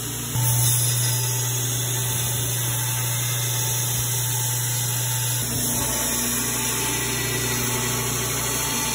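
Belt grinder running steadily as a steel knife blade is ground against the abrasive belt, throwing sparks. The sound steps up about half a second in and changes character again about five and a half seconds in.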